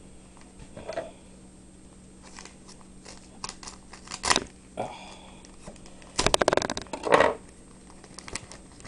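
Trading-card pack wrapper being torn open and crinkled: a few short crackling bursts, the longest and loudest a little past the middle.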